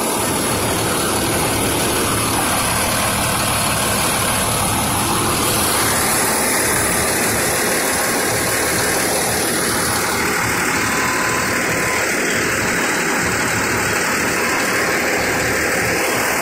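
Fire engine's diesel engine idling steadily, heard close up beside the truck.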